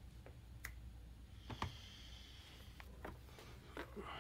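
Faint clicks and light knocks of plastic compact cameras and camera gear being handled and shifted in a cardboard box, a handful of separate taps with the clearest about one and a half seconds in.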